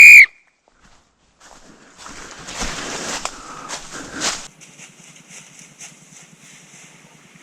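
The tail of a loud start whistle cuts off right at the beginning. After a second or so of quiet, footsteps and clothing or gear rustle for a couple of seconds as players move off, then fade to faint rustling.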